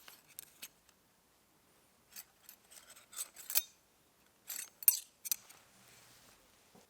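A quick series of sharp clicks and short scraping snips in two clusters, one about two to three and a half seconds in and one around five seconds in, the loudest click just before the second cluster ends.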